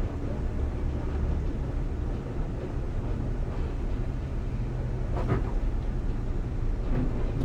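Dump truck's diesel engine running steadily with a low rumble, with a brief clack about five seconds in.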